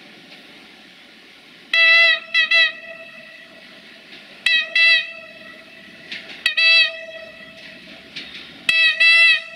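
A Siemens Desiro diesel multiple unit sounds its horn in repeated short blasts as it approaches: four groups of two or three blasts, about two to three seconds apart. Between the groups the train's running is a steady low rumble.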